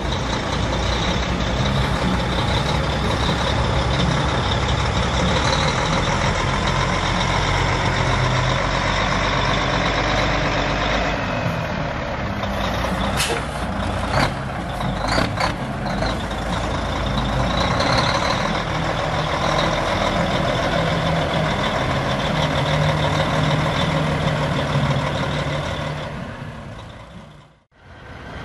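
Diesel engine of a Mack R-model truck tractor running, its note swelling and easing a few times. A few short, sharp sounds come about halfway through.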